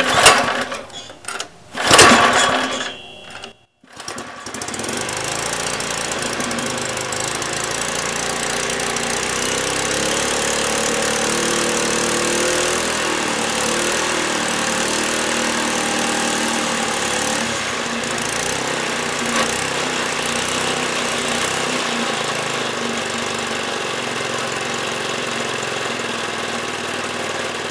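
Small horizontal-shaft gasoline engine cold-started on choke with two pulls of its recoil starter cord, then running steadily at full throttle from about four seconds in.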